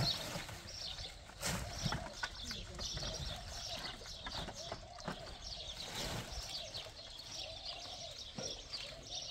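Small birds chirping over and over, high and short, against faint voices, with a few sharp knocks.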